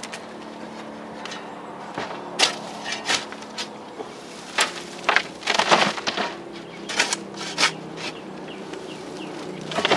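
Dry chicken-coop bedding and compost being scraped and dug out with a hand tool: irregular scraping and rustling strokes, busiest about five to six seconds in, over a steady buzzing hum.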